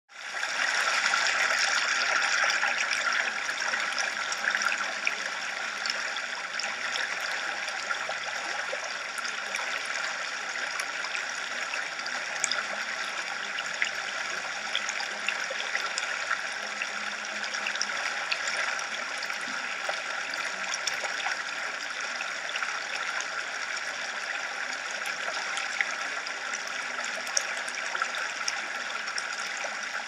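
Running water, a steady, even rush with faint small splashes and ticks through it. It fades in at the very start and is a little louder for the first few seconds.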